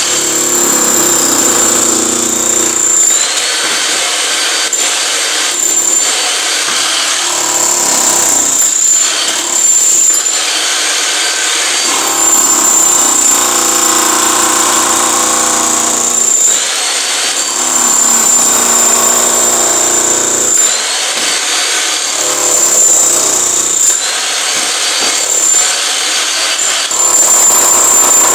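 DeWalt electric demolition hammer chiselling into a concrete floor slab, breaking it up. It hammers in runs of a few seconds each, with a high whine that comes and goes.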